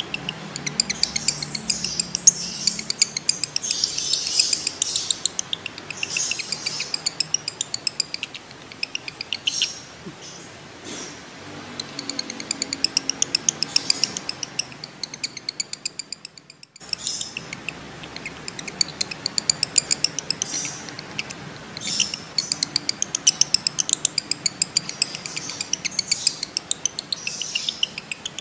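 Male lovebird in breeding condition chattering in long runs of sharp, rapid chirps, many a second, with a brief break about sixteen seconds in.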